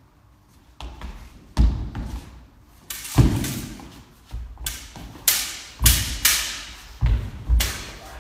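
Fencing footwork and sabre play: feet stamping and landing on a wooden hall floor and steel sabre blades striking, a quick irregular series of sharp thuds and clacks, the loudest cluster in the second half, each echoing briefly in the hall.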